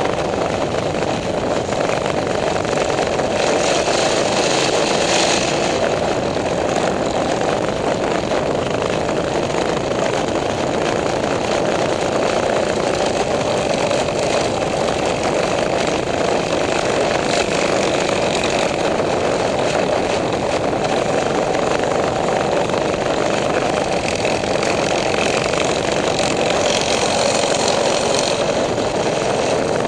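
Small single-cylinder four-stroke minibike engines running steadily at cruising speed.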